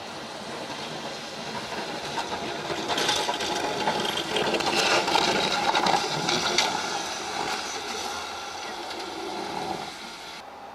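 Chevy pickup truck with a Western snowplow pushing snow: engine and the blade scraping through snow. It grows louder, then fades as the truck passes by.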